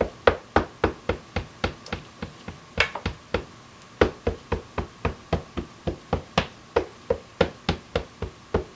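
Ink pad dabbed again and again onto a large cling rubber stamp on a clear acrylic mount, about three or four short taps a second, inking the stamp all the way around before stamping.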